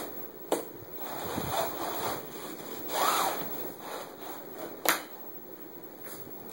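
Uneven rustling and rubbing noise, with two sharp knocks, one about half a second in and one near five seconds in.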